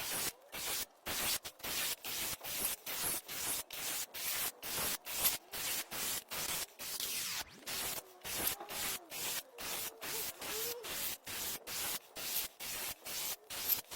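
Pocket-sized cordless power screwdriver driving wood screws into pallet wood with no pilot holes, its motor and the biting screw making a rough grinding whirr in quick short bursts, about three a second.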